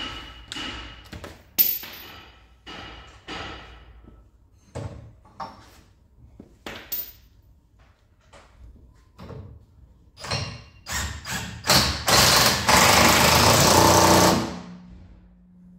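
Scattered clinks and knocks of tools and parts being handled, then a hand-held power tool runs in one loud burst of about two and a half seconds at the car's front strut top, leaving a brief low steady hum as it stops.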